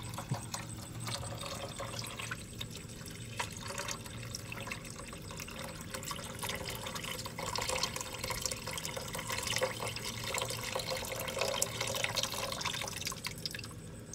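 Coconut water poured in a steady stream from a pitcher into a wide aluminium pan of stewing snake meat, splashing and trickling into the broth.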